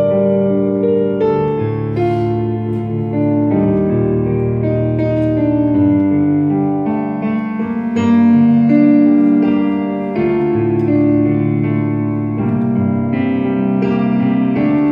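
Piano sound from a Yamaha Motif XF7 synthesizer keyboard, played as slow held chords that change about once a second.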